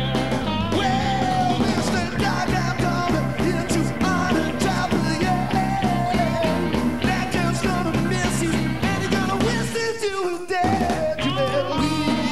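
Live rock and roll band (two electric guitars, bass, drums and keyboards) playing an R&B cover, with a male lead vocalist singing over it. About ten seconds in the bass and drums drop out briefly under a falling vocal line, then the band comes back in.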